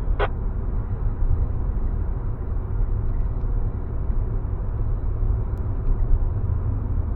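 Wuling Almaz RS cabin noise while cruising on the highway at about 100 km/h: steady tyre and road noise with a low rumble.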